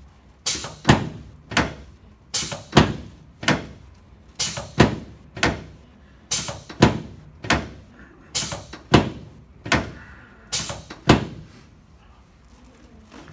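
Repeated sharp clacks from chiropractic adjustments of the right sacroiliac joint on a treatment table, coming in quick groups of about three roughly every two seconds. They stop a couple of seconds before the end.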